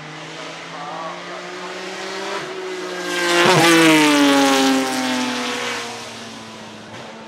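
Straight-six engine of a 1975 BMW 3.0 CSL Group 2 race car driving past under power. The note rises to its loudest about three and a half seconds in, then drops in pitch as the car passes and fades away.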